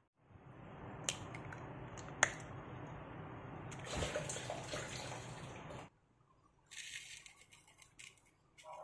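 Eggs being cracked, with two sharp cracks about a second apart, then a wet plop as the eggs slide into a plastic bowl. Near the end, fine granulated sugar pours onto them with a soft hiss.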